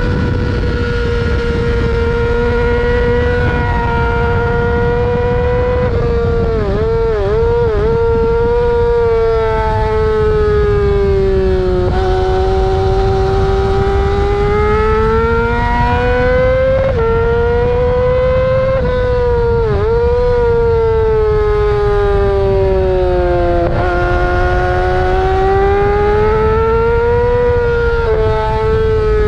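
Yamaha R6's 600cc inline-four engine at racing revs, heard onboard at speed: a high-pitched whine over heavy wind rush. The pitch swoops down and up through the gears, with quick dips where it is blipped on downshifts and sudden steps where it shifts up.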